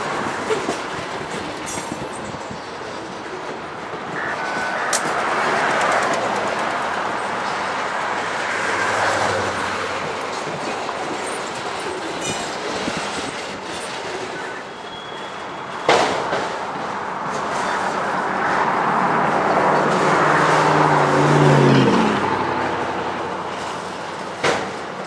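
Freight train cars (tank cars, covered hoppers and autoracks) rolling past, with a steady rumble and the clatter of wheels over the rails. A sharp bang comes about two-thirds of the way through and another near the end. Toward the end, a low hum drops in pitch.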